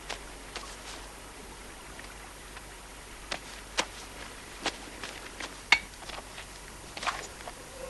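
A steady hiss with about a dozen irregular sharp taps spread through it, the sharpest about five and a half seconds in.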